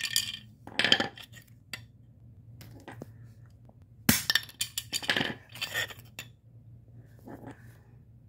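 A heavy metal hammer strikes 3D-printed ABS plastic knuckles on a concrete floor, giving a series of sharp clanking knocks. The loudest comes about four seconds in, with more about a second apart after it.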